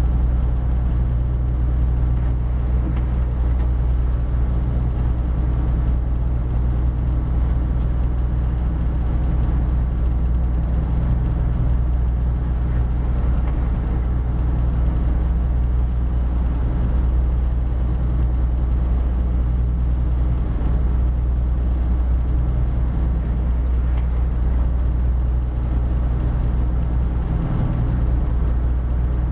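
Inland cargo ship's diesel engine running steadily while pushing the loaded ship upstream, a deep, even hum heard inside the wheelhouse.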